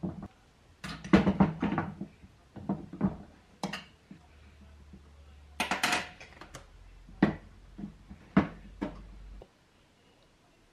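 Knocks and clatter of hard objects being handled, in several short clusters, over a low hum that cuts off near the end.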